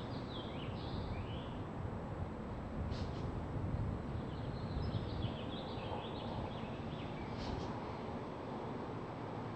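Birds twittering with quick high chirps, once near the start and again through the middle, over a steady low rumble of outdoor ambient noise.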